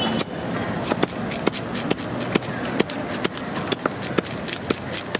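A hand scaler scraping the scales off a whole fish: a quick, irregular run of sharp scratchy clicks, roughly three or four strokes a second.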